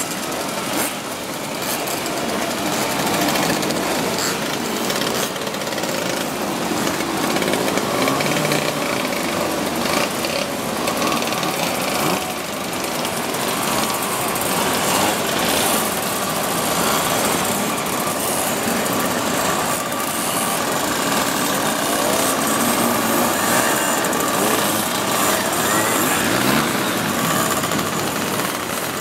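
Many small two-stroke moped and light motorcycle engines running together as a column of riders passes slowly, a steady rattling buzz with no single engine standing out.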